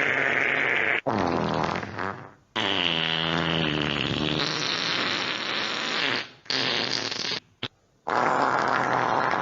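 Fart sound effects played one after another: about five separate farts, each lasting from under a second to several seconds. They have a wavering, buzzing pitch and are cut apart by brief silent gaps.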